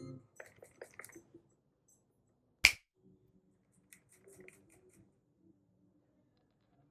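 Light, irregular clicks and taps from handling a YUNZII C75 mechanical keyboard, with one sharp, much louder click about two and a half seconds in.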